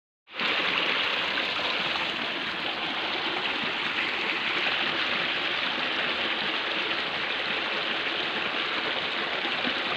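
Stream water flowing with a steady rush.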